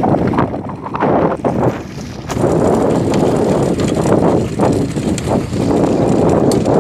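Wind buffeting the microphone on an open boat at sea, a loud, uneven rumble that dips briefly about a second and two seconds in.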